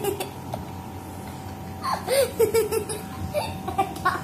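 A person giggling in short bursts of quick, bouncing laughter, briefly at the start and again about two seconds in, over a faint steady hum.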